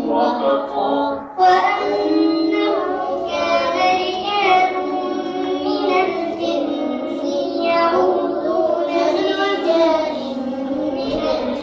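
A child's voice chanting Quranic recitation in melodic tajweed style, drawing the notes out at length with a short breath about a second in.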